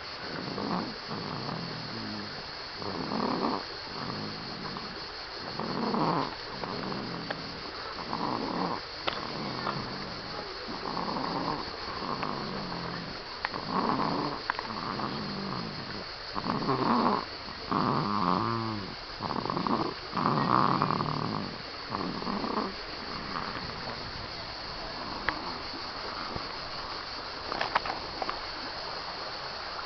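Rhythmic snoring in deep sleep, one snore about every second, loudest around the middle. It dies away about 23 s in.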